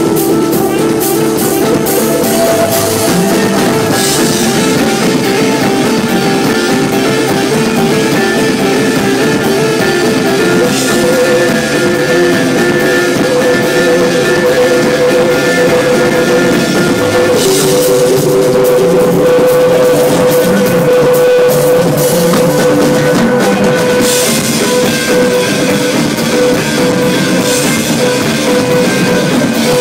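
Live rock band playing loud: electric guitars over a drum kit, with a fast repeating riff at first and a long held note from about a third of the way in.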